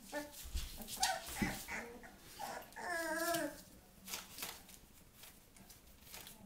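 Bouvier des Flandres puppies whimpering: a few short whines, then one longer, wavering whine about three seconds in. Soft scratches and rustles come from the puppies moving on newspaper.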